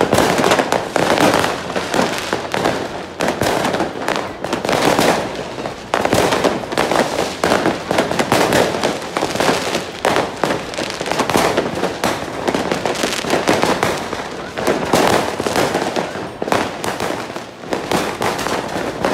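Fireworks and firecrackers going off in a dense, unbroken barrage of many overlapping bangs and crackles.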